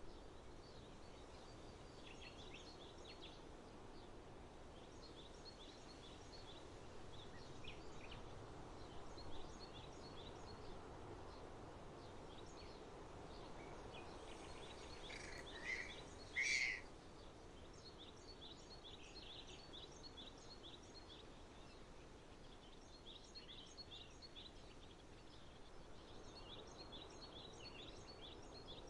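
Faint outdoor park ambience: a low steady hum of distant background noise, with small birds chirping in quick high runs throughout and a louder two-part call about halfway through.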